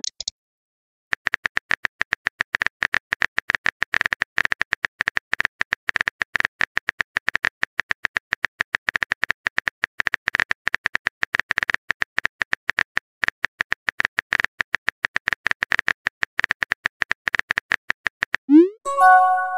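Rapid, steady clicks of a smartphone on-screen keyboard typing sound effect, several keystrokes a second. Near the end comes a short rising swoosh and chime as the message is sent.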